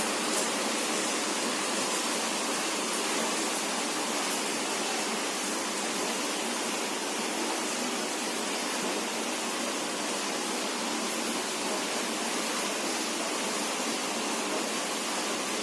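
A steady, even rushing hiss like white noise, with no tone or rhythm in it.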